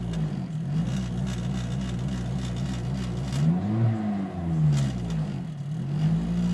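Acura RSX Type S's K20 four-cylinder engine being blipped: quick small rises and falls in revs, then two larger revs, before settling back to a steady idle near the end.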